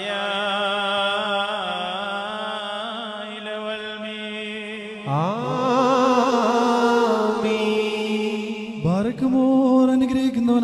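A solo male voice chanting a Syriac Orthodox liturgical melody in long, held notes with wavering ornaments over a steady drone. A new phrase starts with an upward slide about five seconds in, and another near the end.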